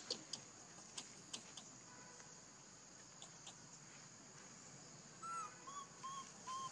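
Quiet background with a faint steady high-pitched hum and a few soft clicks. About five seconds in come four short squeaky animal calls, each a brief arched tone.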